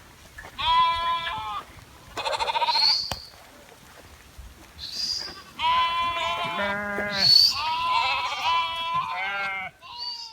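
Sheep and goats of a flock bleating: a few separate quavering calls, then several animals calling over one another for the last few seconds.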